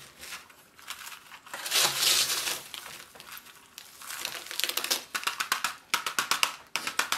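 Chunky orchid potting mix of bark, perlite and pumice rattling and crunching as it is scooped and sprinkled into a small plastic pot. Near the end comes a rapid run of sharp taps as the pot is tapped to settle the mix into the gaps between the roots.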